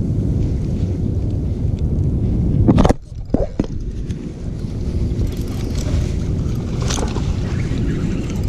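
Wind buffeting the microphone, a loud low rumble that drops away abruptly about three seconds in and returns a second later. A few small clicks sound during the lull.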